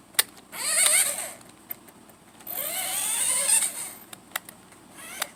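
Small electric motor of a toy remote-control car whining in two bursts as it is driven on the floor, the pitch sweeping up and back down each time, with a few sharp plastic clicks.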